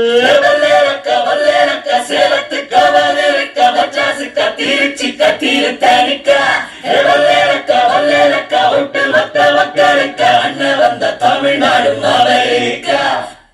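A Tamil song with singing over music, played through a loudspeaker fed from the center-channel output of an HDMI audio extractor. The playback cuts off suddenly near the end.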